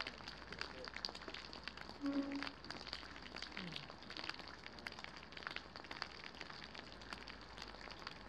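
Rain falling: a steady hiss with many irregular sharp ticks of drops striking close by.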